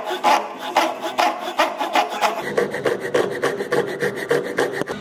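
Hand saw cutting across a round wooden dowel held in a vise, each push and pull a rasping stroke. The strokes come about two and a half a second, then get quicker and shorter about halfway through.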